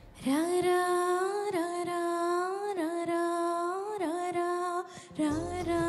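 A woman singing into a microphone, unaccompanied: long held notes with small ornamental pitch bends, a brief breath about five seconds in, and a low steady hum coming in underneath near the end.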